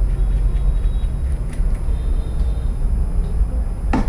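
Light clicks of a drill's chuck adapter being handled and fitted, then a sharp knock near the end as a part is set down on the table, over a steady low rumble.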